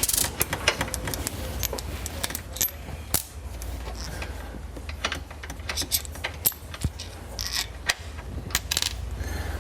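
Irregular metallic clinks and taps of hand tools and small metal parts being handled while the top nuts of a car's rear shock mount are taken off.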